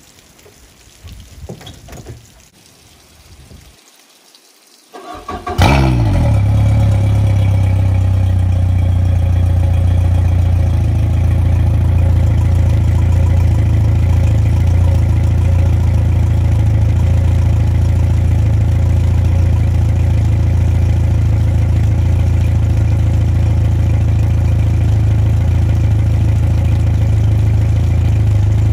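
Yamaha 115 outboard motor starting up about five seconds in, after a few faint knocks, then idling steadily. It is run out of the water on flushing muffs, as a first test after a new water pump and impeller have been fitted.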